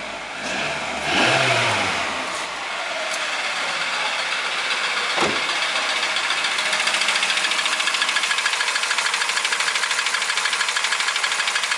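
Toyota Ractis 1.3 L 2SZ-FE inline-four engine running, revving briefly near the start and then settling, with a fast, even knocking from about six seconds in and a single sharp click about five seconds in. The knock has persisted after the timing chain, tensioner and chain guides were replaced.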